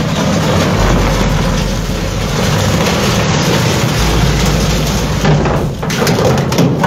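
Steel bow of a cargo ship grinding and scraping along a concrete quay edge, crushing a steel fender frame: a loud, continuous grinding noise with sharp crunches.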